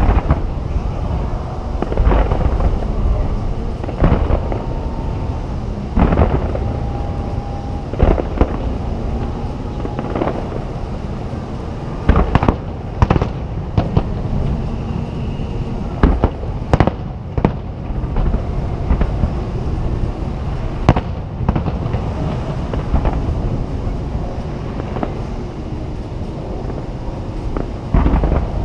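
Aerial fireworks shells bursting over the sea, each a sharp boom with a rolling echo. The booms come about every two seconds, bunch into a quick volley around the middle, then thin out to single bangs, over a steady background rumble.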